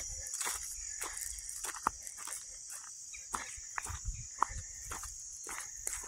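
Footsteps on a dirt forest trail at a walking pace, a few landing harder than the rest, over a steady high-pitched chorus of insects.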